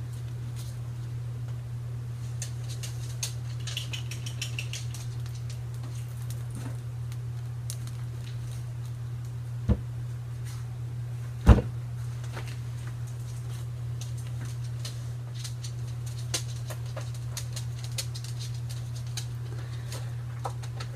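Red multi-wire soap loaf cutter being worked on a soap loaf: scattered light clicks and taps, with two sharp knocks, the louder one about eleven and a half seconds in, as the cutter frame comes down over the loaf. A steady low hum runs underneath.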